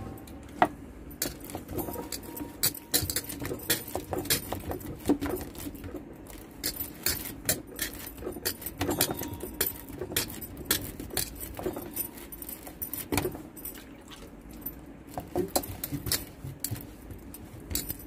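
Hands shaping a hot mudde (cooked flour dough ball) on a steel plate: an irregular run of light pats, taps and metallic clinks.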